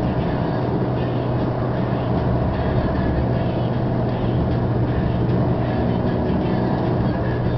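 Steady engine and tyre noise heard inside a car's cabin while it cruises along a highway: a constant low hum under an even road rush.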